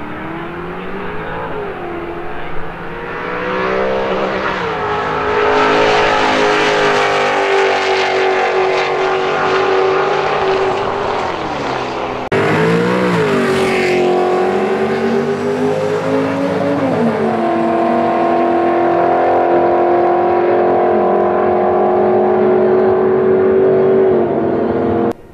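Holden Commodore ute's V8 at full throttle down a drag strip: it revs up and dips at each upshift, a couple of times in the first five seconds, then holds a loud steady note. About halfway the sound jumps abruptly to another take of the run, which climbs through another upshift and again holds steady until it cuts off near the end.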